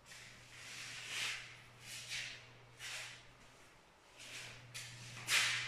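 Footsteps scuffing on a tiled floor, about one step a second, with a low steady hum underneath through parts of it.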